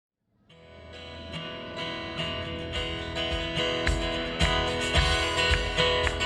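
A worship band's instrumental song intro: strummed guitar fading in and growing louder, with heavier low beats joining about four seconds in.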